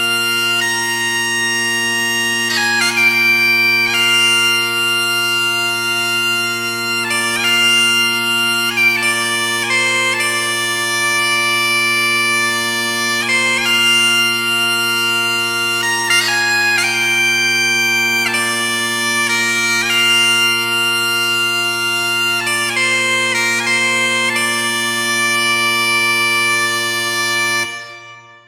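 Scottish bagpipes playing a tune: steady drones hold under the chanter's melody, which moves from note to note with quick grace notes. Near the end the music stops, dying away over about a second.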